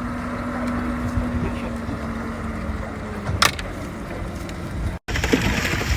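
Boat engine running steadily under way at sea, with a sharp click about three and a half seconds in. The sound cuts out briefly near the end and comes back with more wind and water noise.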